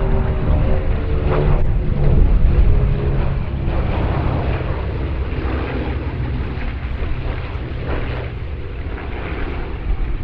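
Piston engines of propeller-driven warbirds passing, loudest about two seconds in and then slowly fading.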